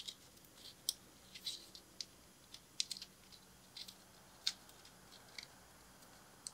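Faint, irregular clicks and crinkles of corrugated plastic split-loom conduit being worked by hand as a spliced wire is tucked inside it.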